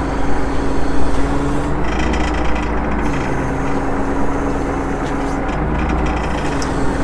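Fishing boat's engine and hydraulic longline hauler running steadily as the line is hauled in: a loud low rumble with a steady hum whose pitch shifts slightly twice.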